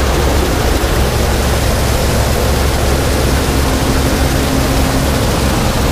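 New Holland combine running while harvesting soybeans, heard from close to its rear wheel. A steady, even rush of machine noise sits over a low engine hum, and a faint steady tone joins in about halfway through.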